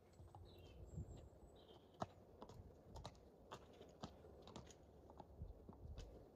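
Faint, irregular clops of a Friesian horse's hooves on a tarmac lane as it is led at a walk, over a low wind rumble on the microphone, with a few faint bird chirps in the first couple of seconds.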